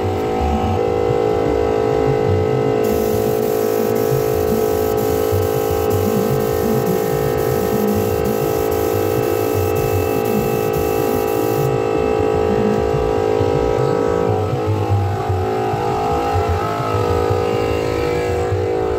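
Air compressor motor running steadily. A spray gun hisses from about three seconds in until about twelve seconds in as it sprays sealer onto the wood.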